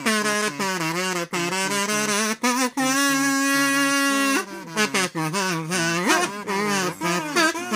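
Layered kazoos buzzing out a fast pop-song melody over a lower kazoo bass line. Around the middle, one note is held for about a second and a half before the quick melody resumes.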